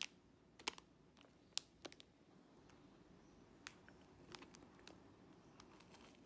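Faint, scattered crinkles and clicks of a plastic ice-cream wrapper being handled and peeled back, a few sharper ones in the first two seconds, over near silence.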